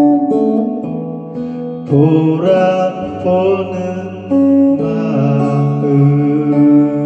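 A slow ballad: a man singing long, held notes over electric guitar accompaniment.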